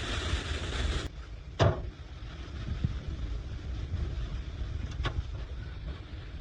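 Blizzard wind buffeting the microphone, a low, steady noise. A brighter hiss cuts off suddenly about a second in, and two short knocks come later.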